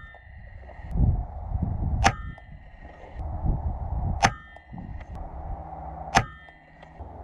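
Air rifle fired three times, about two seconds apart, each shot a sharp crack followed by a short metallic ring. A low rumble comes and goes between the shots.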